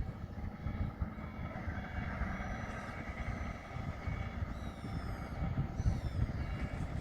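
Tracked pile driver's diesel engine running under load with a low, uneven rumble and a steady whine over it, as the machine is driven onto a trailer.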